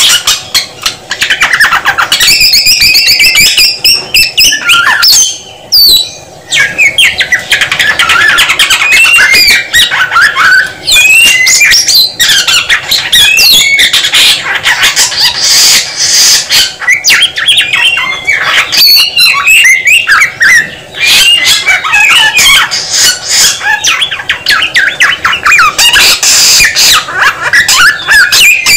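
Samyong (Mongolian lark) in full song: a loud, nearly unbroken stream of rapid, varied chirps, trills and whistled phrases, with a couple of brief pauses.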